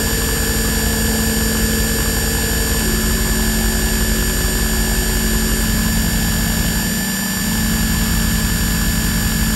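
Experimental electronic drone music: a dense wash of noise with several steady high tones over a low buzzing hum. A mid-pitched tone steps down about three seconds in and drops out around halfway, as a lower pulsing layer comes in.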